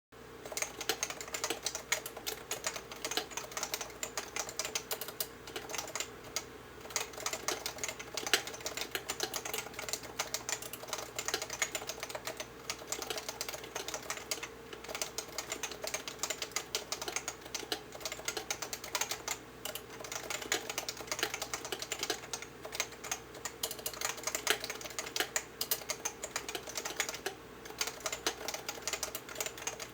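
Continuous fast typing on a Leopold FC660C compact keyboard with unlubricated 45 g Topre electro-capacitive switches: a dense, unbroken stream of key strokes.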